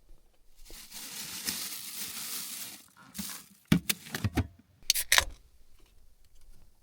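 Rustling for about two seconds, then a quick run of sharp clicks and knocks and another short cluster of them about a second later: objects being handled.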